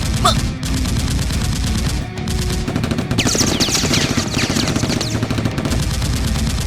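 Rapid automatic gunfire, a dense, continuous stream of shots. It is the gunfire sound effect laid over a Nerf blaster battle. About three seconds in, a spray of high falling whines runs through the firing for a couple of seconds.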